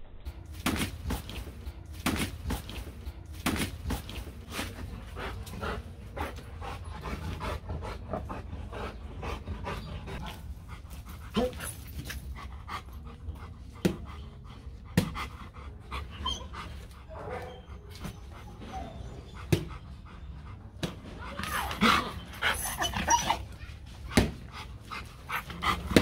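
Rottweiler panting in a steady run of quick breaths, with a few sharp knocks and a short louder sound near the end.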